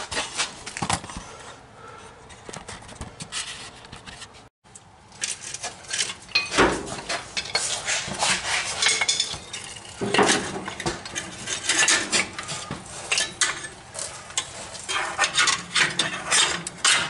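Irregular metallic clanking and rattling in bursts as a rusted steel cab mount under a 1966 Ford F-100 cab is cut into pieces, with a brief gap a little over four seconds in.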